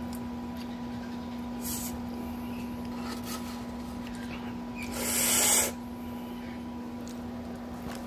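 Sriracha squeeze bottle squeezed once, giving a short hissing spurt of about a second that builds and cuts off sharply, about five seconds in. A steady low electrical hum runs underneath.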